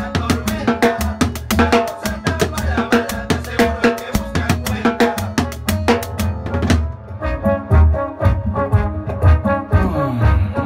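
Timbales struck with sticks in a fast, even run of strokes over a salsa recording with horns. About two-thirds of the way through the dense strokes stop, and the band track carries on with only a few strikes.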